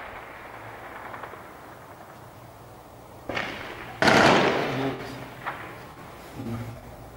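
Small-arms gunfire: a few single shots starting about three seconds in, each dying away in a long echo, the loudest about four seconds in.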